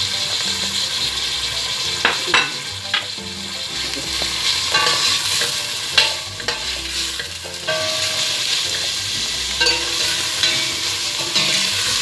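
Shredded chicken, garlic and onion sizzling in hot cooking oil in a stainless steel pot while a metal ladle stirs and scrapes through them, knocking against the pot now and then.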